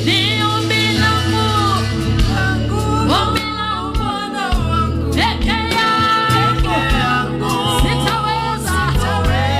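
Live gospel worship music: singers with a band, a sung melody over a steady bass.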